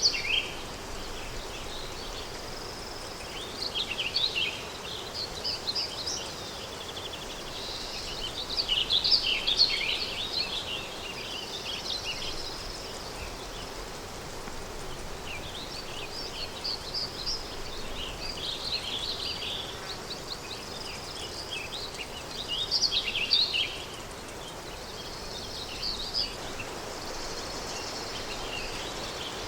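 Countryside daytime ambience: songbirds chirping in scattered bursts, loudest a third of the way in and again near three-quarters of the way, over a steady hiss of wind.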